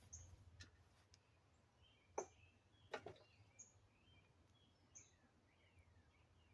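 Faint birds chirping, with two sharp clicks about two and three seconds in.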